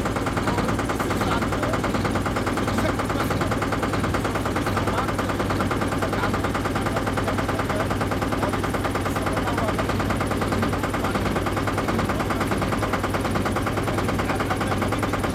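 Motorboat engine running steadily, with a fast, even chugging knock.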